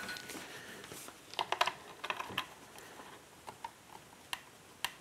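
Scattered light clicks and taps of hands handling a plastic field monitor and plugging in its HDMI cable, with a small cluster of clicks about one and a half seconds in.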